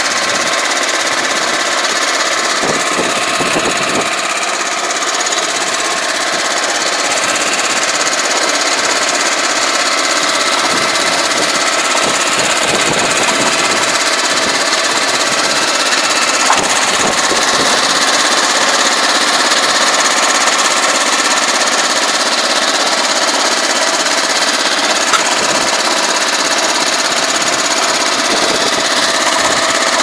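The small engine of a crawler-type self-propelled pesticide sprayer running steadily as the machine creeps down loading ramps off a cargo bed, with a couple of brief knocks about halfway and later on.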